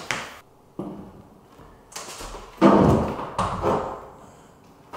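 Knocks and thuds of luxury vinyl planks being handled and set down onto the glued plywood underlay. The loudest is a heavy thud about two and a half seconds in, followed by a few smaller knocks.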